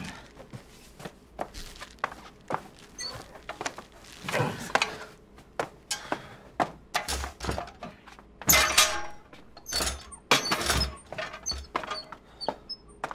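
Thumps, knocks and clatter from a limp body being tipped off a metal hand truck onto a sofa and the hand truck being pulled back. The loudest bursts come about four seconds in and again around nine and eleven seconds in.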